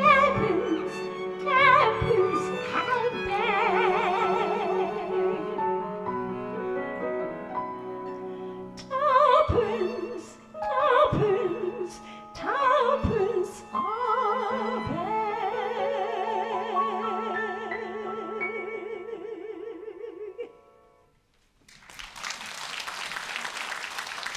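Closing bars of a classical arrangement for soprano, violin, cello and piano: a wavering vibrato melody over a held low note and piano chords, dying away about 21 seconds in. After a moment of quiet, a short burst of applause begins near the end.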